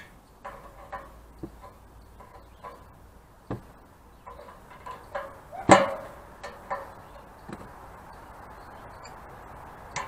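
Wrench clicking and knocking against the metal pipe fittings under a water tank as a union is worked loose, with one louder metallic clank about halfway through.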